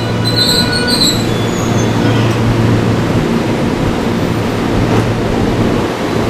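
Train running along the rails at close range, a steady rumble with a steady low hum. Its wheels give a high-pitched squeal during the first second or so, then fade.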